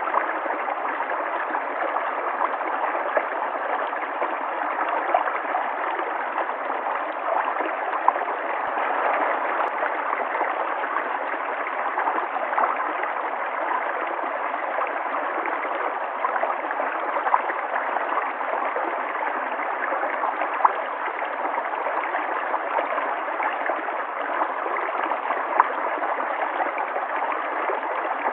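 River water flowing and gurgling over rocks, a steady rushing with small splashes and gurgles scattered through.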